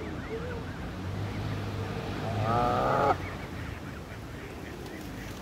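Canada goose goslings peeping softly while feeding, with an adult Canada goose giving one short call about two and a half seconds in, the loudest sound.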